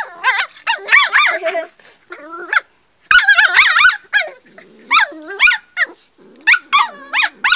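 Sheepdog puppy yelping and whining in short, high, wavering cries again and again while play-fighting with a cat, with lower growling in the middle.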